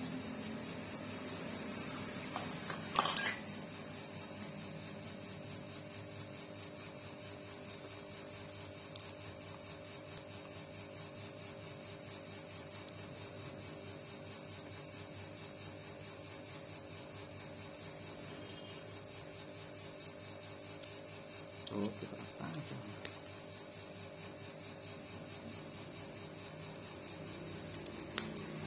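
A small motor-driven mechanism running steadily with a fast, fine rhythm. A sharp knock comes about three seconds in, and lighter knocks come a little past twenty seconds.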